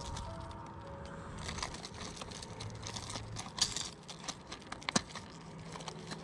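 Plastic blister pack of a fishing lure crinkling and crackling as it is pulled open by hand, with irregular clicks and a few sharper snaps, the sharpest about five seconds in.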